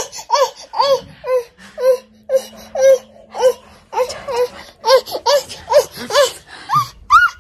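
Baby laughing in a long run of short, high squeals that rise and fall in pitch, about two a second.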